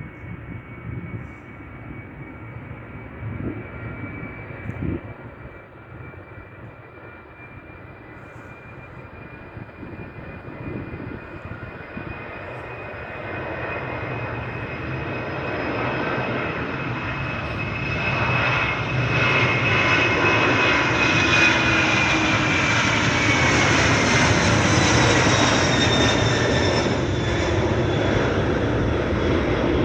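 Airbus A300-600ST Beluga's twin General Electric CF6 turbofan engines at takeoff power: a jet roar with a high whine that grows much louder as the aircraft approaches, is loudest about two-thirds of the way through, and then the whine drops in pitch as it passes.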